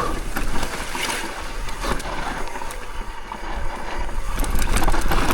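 Mountain bike tyres sliding and scraping through loose, dry dirt on a steep descent, with scattered small clicks and a steady rumble of wind on the microphone.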